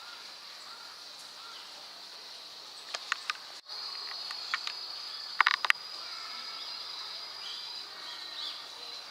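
Steady high-pitched insect trilling, with a few sharp clicks near the middle, the loudest a quick cluster about five and a half seconds in.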